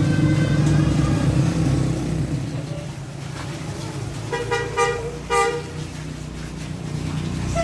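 Tour bus engine running under load with the bus's basuri telolet horn playing a stepped melody that stops about a second in. Three short horn toots follow a little before the middle.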